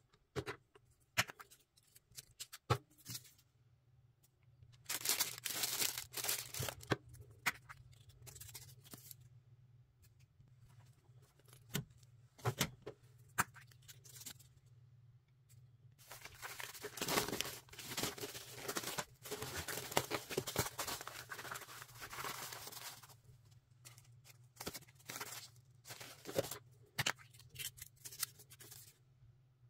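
Hands peeling the tape seal off small plastic gacha capsules: a long stretch of tearing and crinkling about five seconds in and another through the middle, with scattered clicks and taps of plastic between them.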